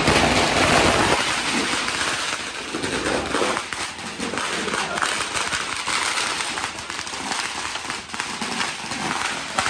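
Firecrackers going off in a rapid, dense string of cracks and pops, heaviest in the first second and then running on without a break.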